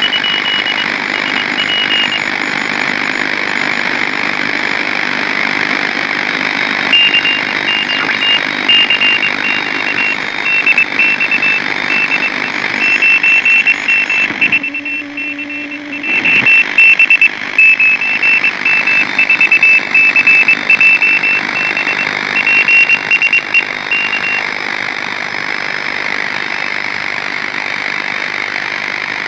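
A Morse code (CW) signal received on a direct-conversion radio receiver: a high beeping tone keyed on and off in dots and dashes over loud, steady band hiss. The hiss drops out briefly about halfway, leaving a low hum.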